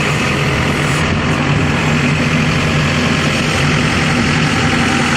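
Diesel engine of a Mahindra SX 74 HP backhoe loader running at a steady speed, a loud, even low drone with no change in pitch.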